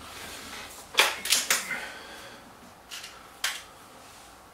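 BSA Lightning SE break-barrel air rifle being cocked and reloaded: a quick cluster of metallic clicks and clunks about a second in, then a single sharp click about halfway through as the action is closed.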